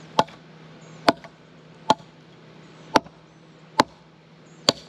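A hand axe tapped against seasoned oak firewood, six sharp, short knocks about once a second at a nearly even pace.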